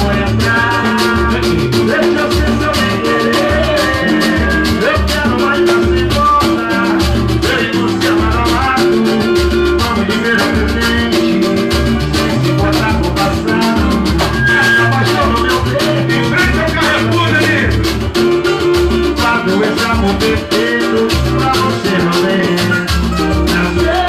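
Band music with a steady, pulsing bass beat, percussion and held instrumental notes.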